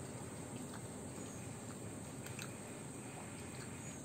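Faint eating sounds: fingers mixing biryani rice on a plate and quiet chewing, with a few small clicks, over a steady background hiss.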